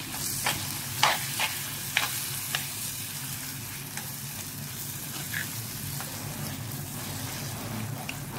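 Blended tomato sizzling in a hot pan of fried onion masala as a spoon stirs it in. The spoon clinks against the pan several times in the first three seconds, loudest about one and two seconds in, then the frying settles into a steady sizzle.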